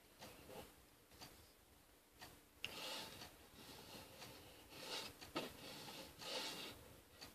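Faint rustling with a few soft clicks from a person moving close to the microphone while signing. There are several short swells of hiss from about three seconds in and one sharper click a little past five seconds.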